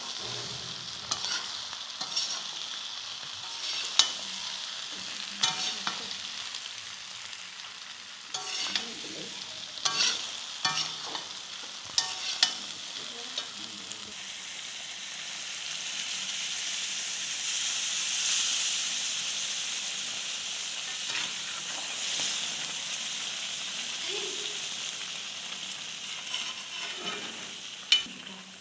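Chicken and potato pieces sizzling in oil in a wok, with a metal spoon scraping and knocking against the pan as they are stirred. About halfway through, water is poured into the hot pan and the sizzle swells into a louder hiss for several seconds before easing off, and the stirring clicks return near the end.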